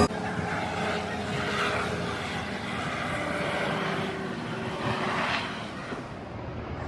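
Tour helicopter approaching: its rotor and turbine make a steady noise with a faint low hum.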